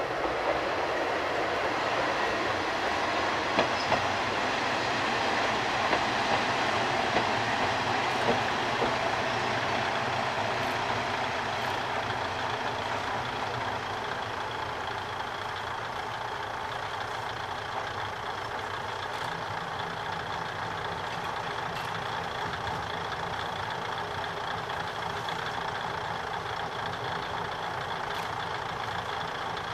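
Kominato Railway KiHa 200 diesel railcars coming into the station, engines running, with a few sharp knocks from the wheels early on. The noise then eases to a steady engine idle as the two-car train stands at the platform.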